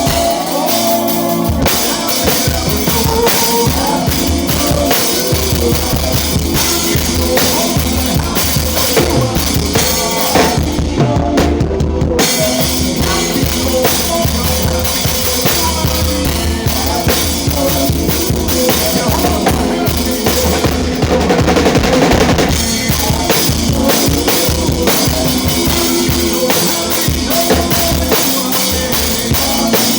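Live worship band playing an instrumental groove: a drum kit drives a steady beat with kick, snare and rimshots over sustained bass and chords. The live recording is loud and rough-sounding.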